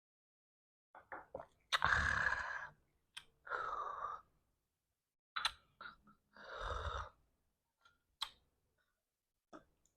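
A person eating spicy soup: short noisy slurps or breathy exhales, four in all, each under a second, the loudest about two seconds in, between small sharp clicks from a spoon or mouth.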